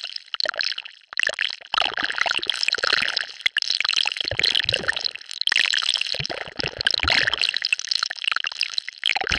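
Designed sci-fi 'alien virus mutation' sound effect: a dense, wet-sounding bubbling made of many small rapid pops. It breaks off briefly about a second in and again near three and a half seconds.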